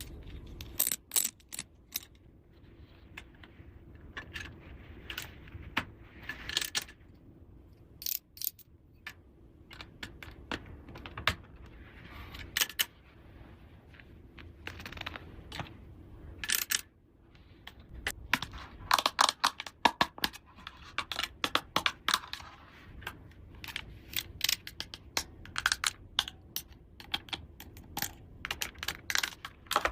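Small plastic toy pieces clicking and clattering as they are handled and set down, with rustling of plastic packaging in between.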